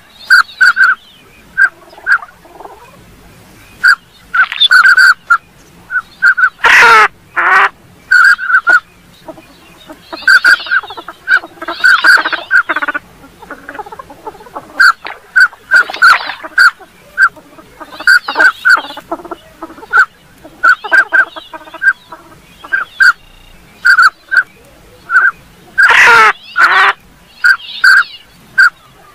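Northern pintail calls: many short whistled notes at one pitch, given in quick pairs and runs, mixed with louder, raspier calls, two of which slide steeply down in pitch, about a quarter of the way in and near the end.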